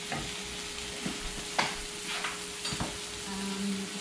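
Sliced pork and onions sizzling in a hot frying pan, with several sharp clicks and scrapes of a spatula against the pan.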